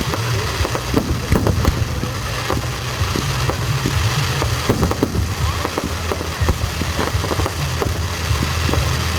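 Fireworks display: a quick, irregular series of bangs and crackles from aerial shells and cakes, over a steady low rumble.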